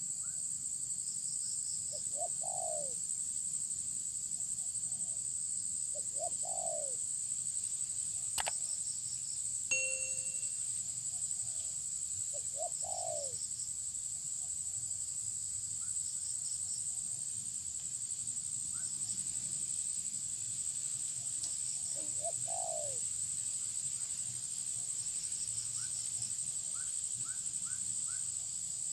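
Spotted doves cooing: four coo phrases several seconds apart, over a steady high-pitched insect drone and faint small-bird chirps.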